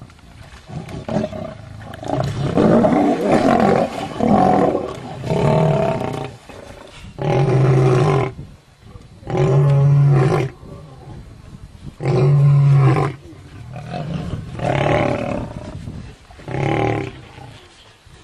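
Male lions roaring: a run of about nine loud calls, each a second or so long, with short pauses between them.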